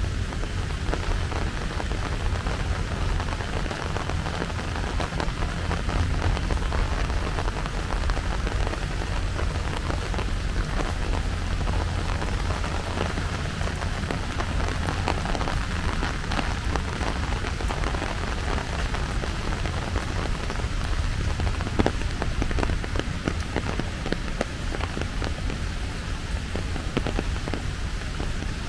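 Steady rain falling, a dense patter of drops over a low rumble, with one sharper tick about three-quarters of the way through.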